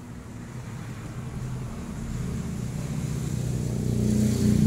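A motor vehicle's engine approaching, its low hum growing steadily louder toward the end.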